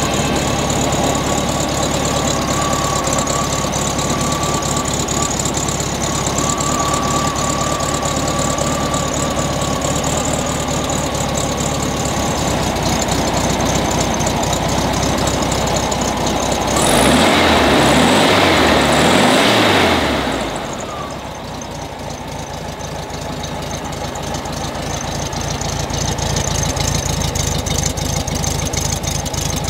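1957 VW Beetle's air-cooled 1600 single-port flat-four idling steadily. It is revved once for about three seconds, roughly two-thirds of the way through, then settles back to idle.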